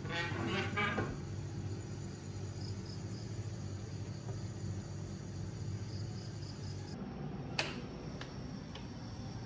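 Dawn ambience of insects chirping faintly over a steady low hum, with one sharp click about three quarters of the way through.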